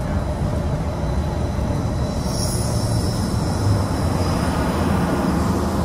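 Disneyland Mark VII monorail running, heard from inside the cabin: a steady low rumble, with a high hiss that comes in about two seconds in and fades near the end.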